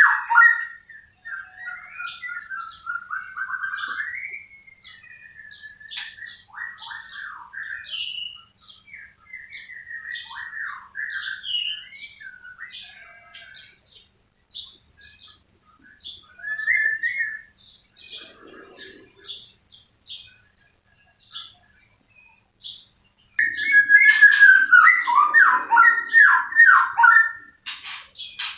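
White-rumped shama (murai batu) singing: varied whistled phrases and short high notes, with pauses between them, rising to a loud run of rapid phrases near the end.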